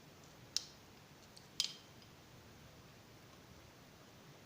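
Two light, sharp clicks of kitchen utensils about a second apart while turnip syrup is being strained into a glass, over quiet room tone.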